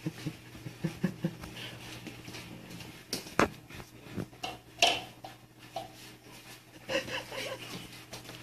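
Cats jostling at plates of dry cat food: scattered knocks and clicks from plates and paws on the floor, the loudest about three and a half seconds in, over a steady low hum.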